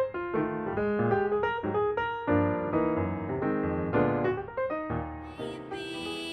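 Background music led by piano, playing a run of separate notes. Near the end it moves into long, held tones with a slight waver.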